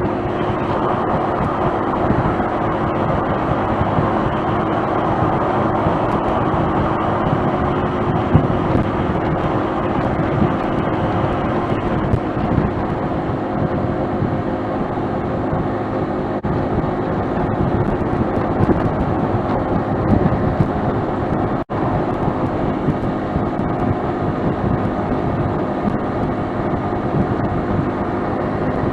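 Honda Fusion 250 cc single-cylinder scooter cruising at expressway speed: a steady engine hum under continuous wind and road rush, with a momentary dropout about two-thirds of the way through.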